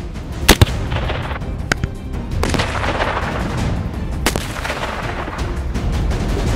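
Shots from an AR-15-style rifle. Two sharp cracks come close together about half a second in, two fainter cracks follow a little later, and another loud crack comes about four seconds in. Background music plays underneath.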